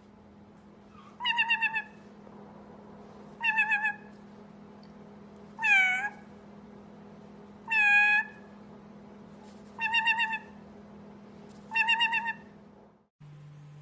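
Parrot imitating a cat's meow, six calls about two seconds apart; four have a warbling waver and two rise and fall like a real meow. A steady low hum runs underneath and cuts off near the end.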